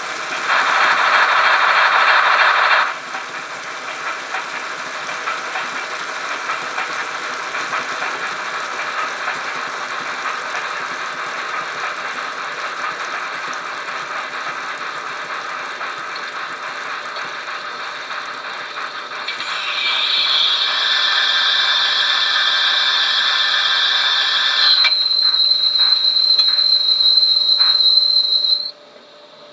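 Trix HO-scale model of an SNCF class 241 A steam locomotive running on a rolling road, its onboard sound decoder playing steam-locomotive sounds through the model's small loudspeaker. A louder blast comes in the first three seconds, then a steady run. A louder, higher hissing stretch follows as the wheels come to a stop, and then a steady high tone with a few clicks, cutting off suddenly near the end.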